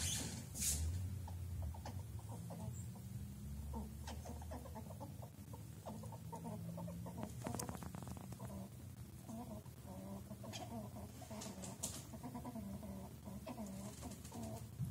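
Squirrel giving soft, rapid clucking calls in repeated short runs, with a sharp click or two in between.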